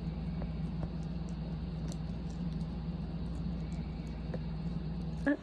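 A small dog gnawing a chew stick: a few faint, sparse clicks over a steady low hum. A brief rising sound comes just before the end.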